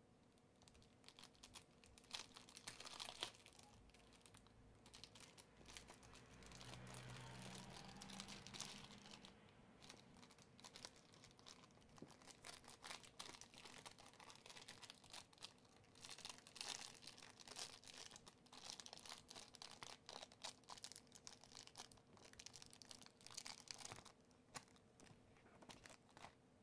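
Faint crinkling and crackling of a thin clear plastic bag as a small item is handled and worked out of it, with scattered light clicks.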